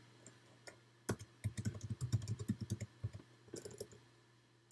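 Typing on a computer keyboard: a quick, irregular run of key clicks that begins about a second in, then a brief pause and a last few keystrokes.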